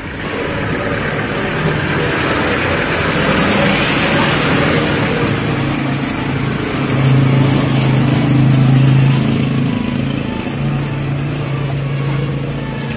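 Engine of a motor vehicle running close by on the street over traffic noise, its low hum loudest about seven to nine seconds in.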